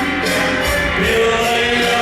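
Music from a song performance: accompaniment with held melody notes, the melody stepping up to a higher sustained note about a second in.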